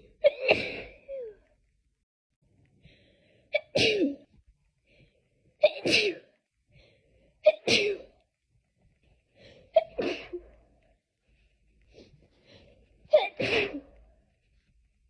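A person sneezing over and over in a sneezing fit: six loud sneezes, one every two to three seconds, some with a short intake of breath just before. The uploader puts the fit down to hay fever.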